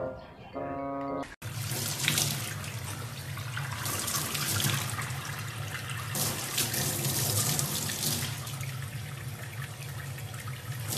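Water from a faucet running and splashing into a stainless steel sink, starting abruptly about a second and a half in, after a few notes of mallet-percussion music.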